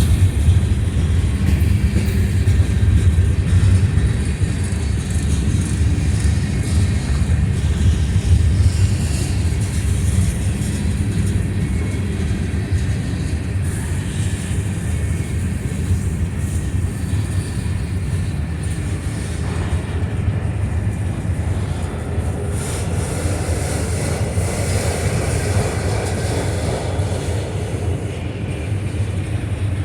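A train rolling past with a steady, loud low rumble that holds throughout.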